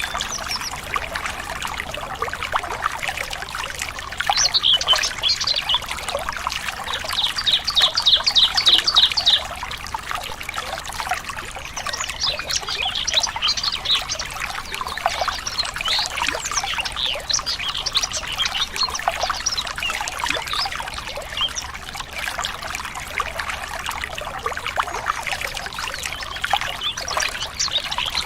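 Water trickling steadily, with birds chirping over it. About seven seconds in, one bird gives a quick run of about nine repeated high notes, the loudest moment.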